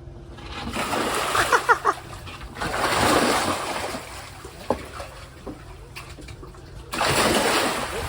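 Water splashing in three surges, about a second in, at about three seconds, and again near the end.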